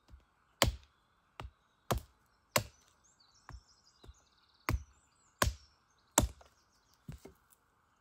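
Wood being chopped: about a dozen sharp blows, spaced unevenly half a second to a second apart.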